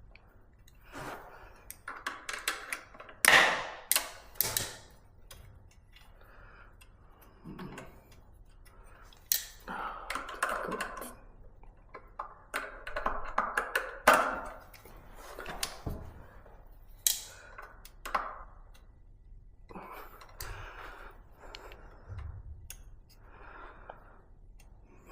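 Pliers working on the rear disc brake caliper of an e-bike, bending over the brake pad retaining pin: irregular sharp metallic clicks and taps with quieter handling and scraping between them.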